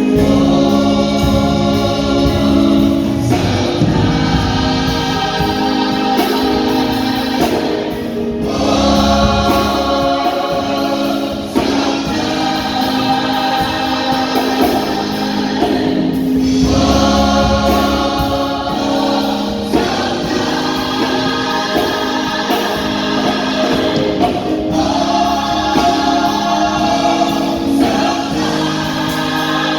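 Gospel choir singing in harmony over a sustained keyboard accompaniment, in phrases of a few seconds each.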